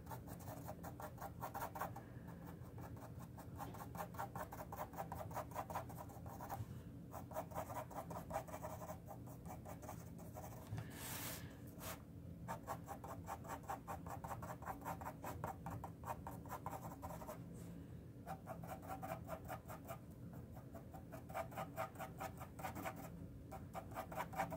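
Mechanical pencil scratching faintly on paper in rapid short strokes, sketching fine hair lines, in runs broken by brief pauses.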